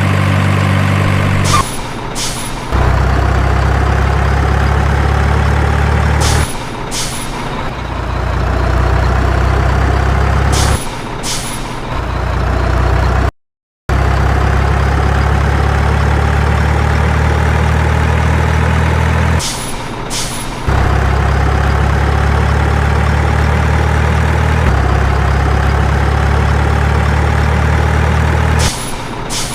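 Heavy diesel truck engine running steadily, with a faint whine that slowly rises in pitch. The sound breaks off briefly every few seconds with a pair of clicks, and it cuts out completely for a moment about halfway.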